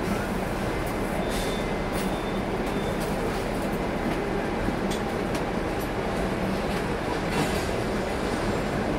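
Hong Kong double-decker electric tram moving slowly along its street track, heard from on board: a steady rumble and rattle with a few faint clicks.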